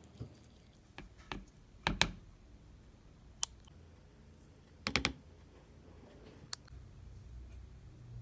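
Kitchen spoons knocking and tapping against a plastic mixing bowl while dry rolled oats are stirred and ingredients are spooned in. A few separate sharp clicks, with a double knock about two seconds in and a quick cluster of knocks about five seconds in.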